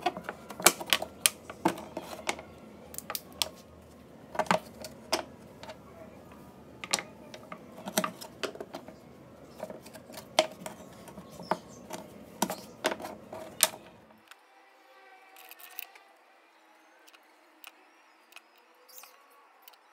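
Irregular sharp clicks and taps of small wooden twigs being cut with a craft knife and handled on a wooden workbench. About fourteen seconds in, the sound drops abruptly to a quieter background with only a few faint ticks.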